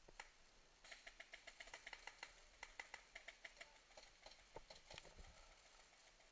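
Paintball markers firing: a fast run of sharp pops, about seven a second for a couple of seconds, then scattered single shots.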